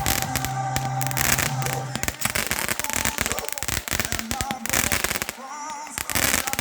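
Fireworks going off in quick succession: a dense run of crackling bursts and bangs, with music playing under it for the first two seconds.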